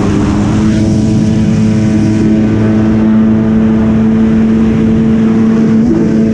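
Yamaha Wave Raider jet ski's two-stroke engine running under way with the trim all the way up. It holds a steady pitch over water and wind noise, and the pitch wavers and shifts near the end.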